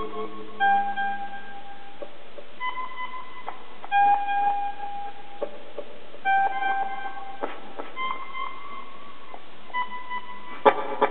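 Sparse electronic music: single held synthesizer tones, a new note every second or two, over a steady faint hiss, with a sharp click near the end.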